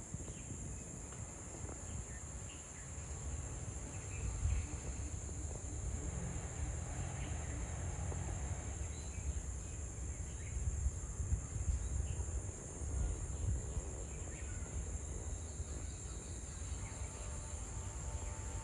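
Insects trilling, a steady high-pitched drone that doesn't change, over a low rumble on the microphone.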